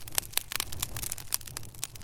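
Wood fire burning in a fireplace, crackling with irregular sharp pops and snaps, several a second, over a low steady rumble.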